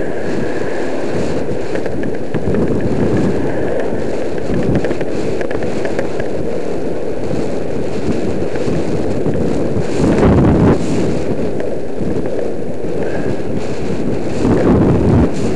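Wind buffeting the microphone of a helmet camera on a moving bicycle, with the rumble of the tyres on the tarmac beneath it. Louder gusts come about ten seconds in and again near the end.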